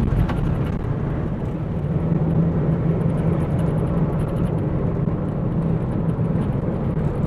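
Car engine and road noise heard from inside the cabin of a car being driven fast, as a steady drone.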